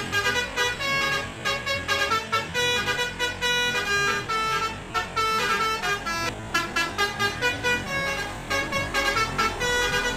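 Basuri telolet bus horn playing a quick melody of short notes that change pitch several times a second.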